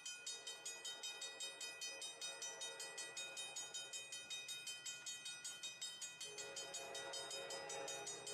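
Railroad crossing bell ringing in rapid, even strikes, about four a second, while the crossing gates are down. About six seconds in, an approaching train's horn joins, a steady chord that grows louder.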